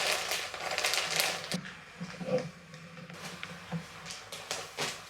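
Rustling with a quick run of light clicks and taps for about the first second and a half, then scattered single clicks and taps.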